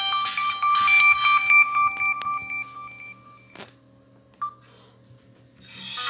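Samsung C3322 feature phone's speaker playing a synthesized beeping ringtone melody that fades and stops about three seconds in. A sharp click follows, then it is quiet until another ringtone starts at the very end.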